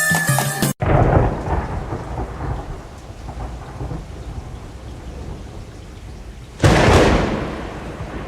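Background music cuts off abruptly about a second in, giving way to thunder rumbling over steady rain. A second sudden, loud thunderclap breaks near the end and rolls away slowly.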